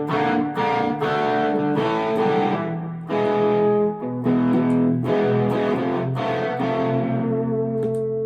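Electric guitar through a Joyo Vintage Overdrive pedal and a Harley Benton amp in 15-watt mode: a string of overdriven strummed chords, with the last chord left to ring for a couple of seconds. The guitar is out of tune.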